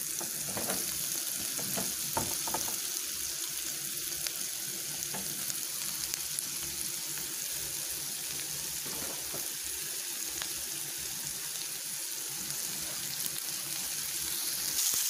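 Diced onion sizzling in oil in a frying pan, a steady hiss, while sliced button mushrooms are added by hand, with a few light knocks in the first few seconds.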